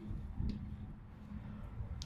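Faint handling noise from hands working a junior trampoline's metal frame and pole: a soft click about half a second in and another near the end. Under it runs a steady low hum.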